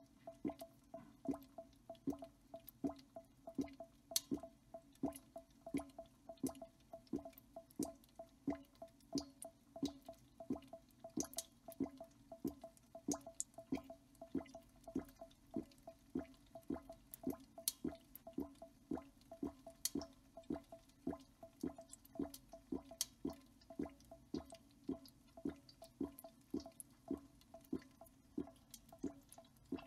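A quick, steady run of soft clicks, about three a second, over a faint steady hum.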